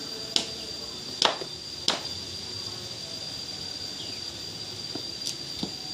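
A few sharp knocks or taps, three in the first two seconds and two fainter ones near the end, over a steady high-pitched whine.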